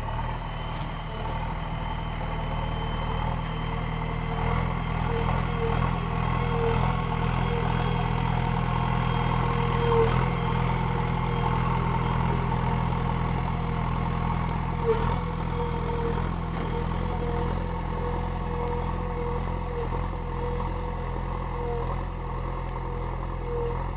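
JCB 3DX backhoe loader's diesel engine running steadily, with two brief knocks about ten and fifteen seconds in.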